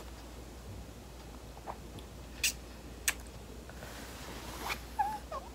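Faint wet clicks and smacks of a small dog licking a person's cheek, a few separate ticks, with a short wavering squeak near the end.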